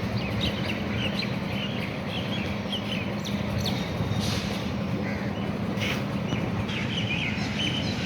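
Small birds chirping again and again over a steady low hum and constant background noise, with a couple of brief noise bursts near the middle.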